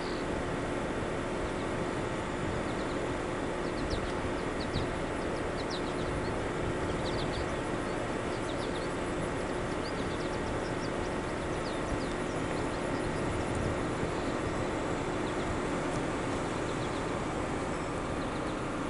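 Steady running noise of a car, heard from beside its window, with faint short high chirps scattered through.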